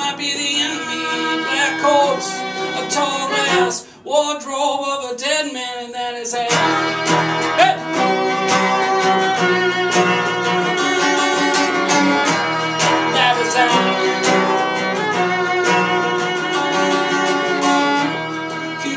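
Live acoustic music: a violin and a strummed acoustic guitar playing together, with a man singing. About four seconds in the music drops away for a moment, thins for a couple of seconds, then comes back fuller.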